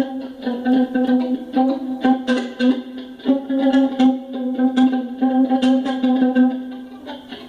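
Guitar improvisation: a quick run of plucked notes repeated over one strongly sounding low note.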